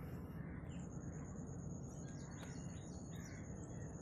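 Faint background noise with a few short bird chirps about two to three seconds in. A steady high-pitched tone joins about a second in.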